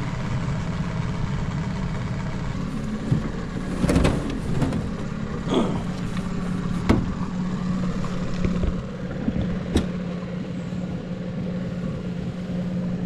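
Boat motor idling steadily, with several sharp knocks and clatters over it as a crawfish trap is handled aboard.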